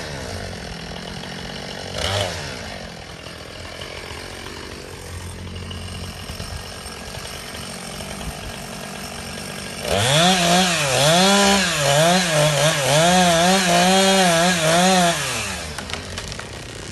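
Two-stroke chainsaw idling, blipped twice near the start. About ten seconds in it runs at full throttle for about five seconds, its pitch wavering under load as it cuts into the base of a cedar trunk, then drops back to idle.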